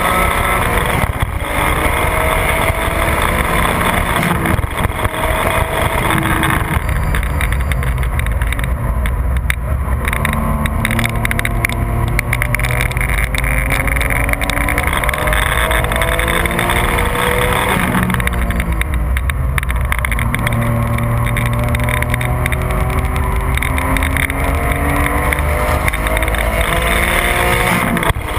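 Porsche 996 GT3's naturally aspirated 3.6-litre flat-six engine pulling hard at full throttle on a race track, heard from inside the car, its pitch repeatedly rising under acceleration and dropping at gear changes and braking, over steady tyre and wind noise.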